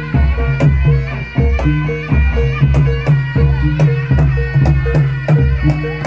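Traditional Javanese Dawangan music played live: drum strokes repeat in a steady rhythmic pattern beneath held, reedy pitched tones.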